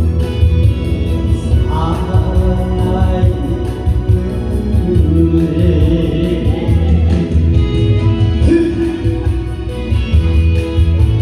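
Loud music with singing: a voice over a band accompaniment with a steady beat.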